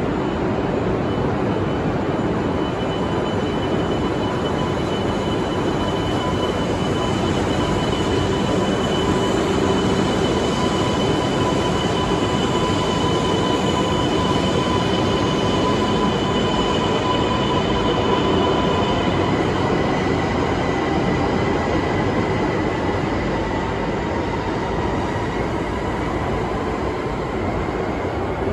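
E2 series 1000 Shinkansen pulling out of an underground station: a steady rumble of wheels on rail under several steady whining tones from its Mitsubishi IGBT VVVF inverter and traction motors, with a further tone entering and rising gently about two-thirds of the way in.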